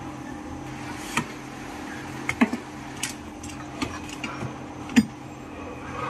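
Scattered sharp clicks and knocks of hard plastic as the steamer's plastic base housing and its wire connectors are handled and fitted, the sharpest about five seconds in, over a steady low background hum.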